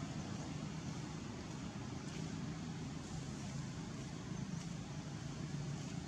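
Steady low background rumble with a faint continuous hum and a few faint ticks.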